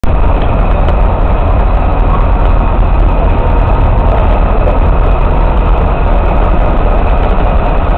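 MÁV class 448 (M44) diesel shunting locomotive's engine idling with a loud, steady, deep rumble.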